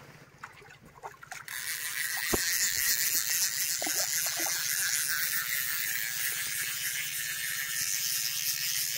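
Fishing reel ratcheting in a fast, continuous buzz while a hooked fish, a rohu, fights on the line. It starts sharply about a second and a half in, with a sharp knock soon after.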